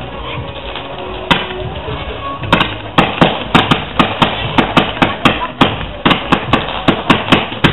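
Fireworks launched from the ground, firing sharp shots. There are a few at first, then from about three seconds in a fast run of about four shots a second.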